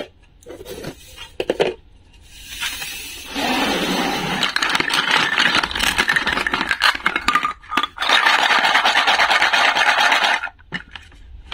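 Hard plastic toy play-food pieces clattering and rattling against each other as hands stir through a box of them, a dense run of small clicks and scrapes. It starts about three seconds in after a few light knocks and breaks off briefly about two-thirds through.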